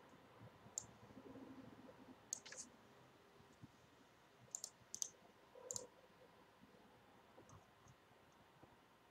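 Faint, scattered clicks of a computer mouse, one or two at a time at irregular moments, with near silence between them.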